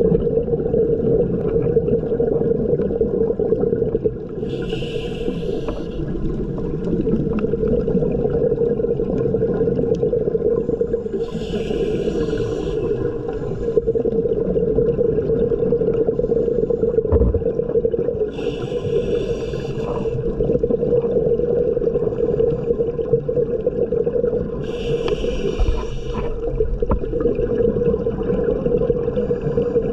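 Underwater sound with a steady low hum, broken about every six to seven seconds by a hissing, bubbling burst of a second or so: scuba regulator exhaust bubbles as a diver breathes out.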